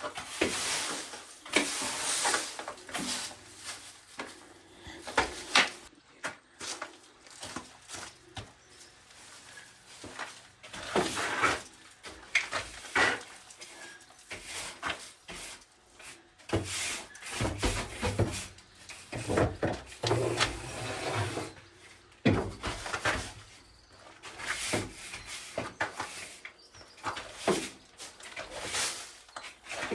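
Irregular wooden knocks, scrapes and rubbing from timber being handled and worked.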